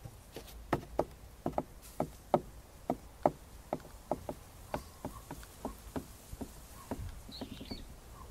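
Shih Tzu puppy pawing and scrabbling at its padded dog bed and blanket: a run of short, soft irregular taps, about two or three a second.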